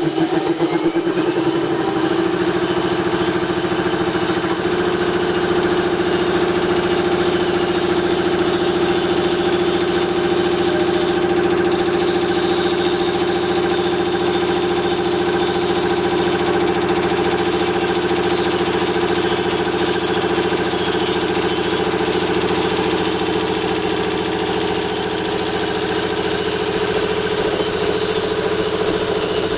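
Air-cooled high-pressure air compressor starting up and running steadily with a mechanical hum, its pitch rising over the first couple of seconds. It is pumping up its tank, the pressure on the gauge climbing.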